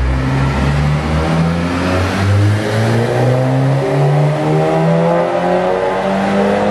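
SEAT Leon's engine revving on a chassis dyno, its pitch climbing slowly during a power run. Music with a low bass line that steps from note to note runs underneath.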